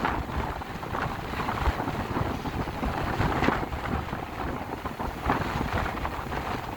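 Wind buffeting the microphone on a small motorboat rocking on the sea, with water splashing in irregular surges.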